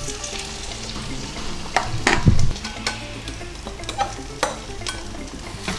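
Potato, onion and beaten egg mixture being poured from a bowl into a hot frying pan and sizzling, with a spatula scraping and knocking against the bowl and pan several times, the loudest knock about two seconds in.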